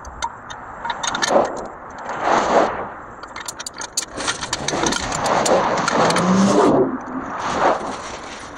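Steel four-link suspension bars and brackets being handled: repeated metal clinks and rattles, with rough scraping swells in between.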